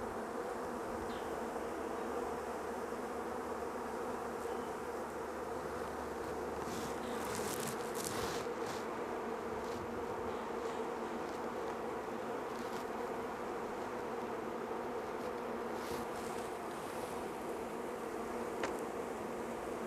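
Many honeybees from a freshly installed package buzzing around an open hive in a steady, unbroken hum. A few brief rustles come about seven to eight seconds in.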